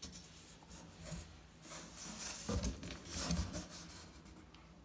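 Rubbing and scraping handling noises with a few soft thumps, loudest from about two and a half to three and a half seconds in.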